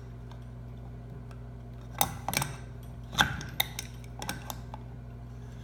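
An adjustable wrench clicking and clinking against the lock nut on a trolling motor's propeller as the nut is tightened: a scatter of light metal clicks starting about two seconds in, over a steady low hum.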